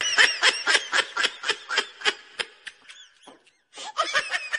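A high-pitched, squeaky comic laugh sound effect: a quick 'he-he-he' run of about five syllables a second that slows and thins out, then a short new burst of giggles near the end.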